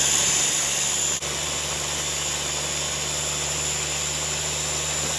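Countertop blender motor running steadily at high speed, pureeing soaked guajillo chiles, carrots and onions with broth. The level drops slightly about a second in.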